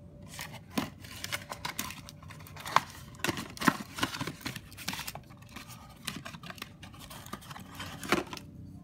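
Cardboard packaging rustling, scraping and crackling as hands open an oil filter box and take the filter out. The noises come in irregular bursts of sharp snaps, the loudest a crack near the end.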